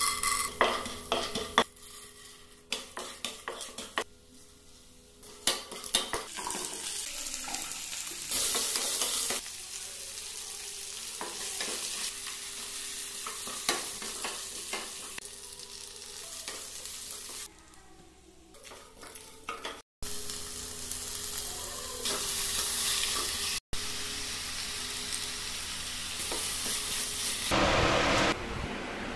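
Oil sizzling in a nonstick pan as chana dal, then shallots, curry leaves and dried red chillies fry, with a wooden spoon stirring and knocking against the pan. There are several sharp knocks in the first few seconds, then a steady sizzle.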